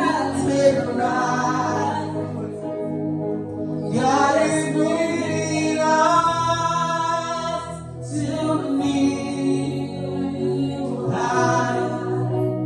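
Gospel song: vocals holding long drawn-out notes, sliding between pitches, over a steady instrumental backing.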